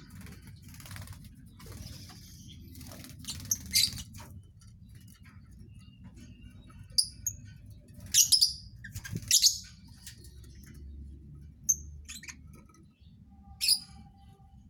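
Lovebirds giving short, shrill chirps, about six separate calls spread out, over a low steady background hum.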